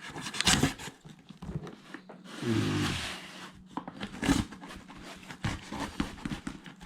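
Cardboard product box and packaging being handled and opened: scattered clicks and knocks, with a rustle or tear lasting about a second, starting a little over two seconds in.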